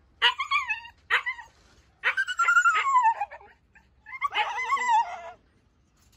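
Hungry Siberian husky puppies whining and yipping in high, wavering calls: four bursts, the longest a couple of seconds in with its pitch sliding down.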